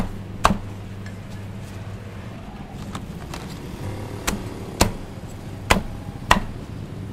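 Cleaver chopping grilled chicken on a cutting board: sharp knocks at the start and again in quick pairs about half a second apart a few seconds later, over a steady low hum.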